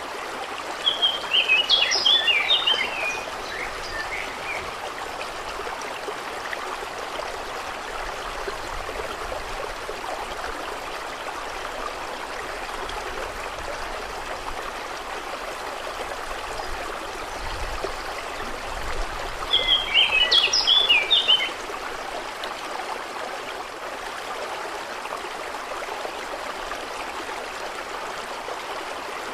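Steady rush of flowing water, with a songbird singing two short phrases of quick chirps, one about a second in and one about twenty seconds in.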